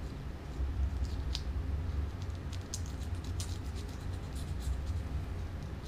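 Fillet knife cutting through a red drum's thick scales and flesh, a run of short scratchy clicks and crackles, over a low steady hum.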